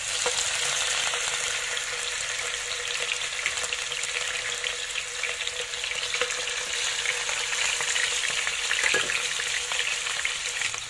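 Tuna steaks frying in hot cooking oil in a frying pan: a dense sizzle and crackle that starts abruptly as the pieces go into the oil and then runs on steadily.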